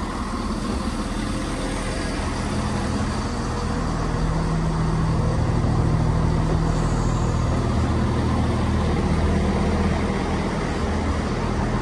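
Underfloor diesel engines of a Class 170 Turbostar diesel multiple unit idling at a standstill: a steady low engine hum that grows a little louder about four seconds in.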